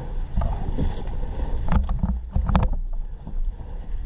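Low rumbling wind and handling noise on a worn action camera's microphone, with a quick cluster of five or six sharp knocks just under two seconds in.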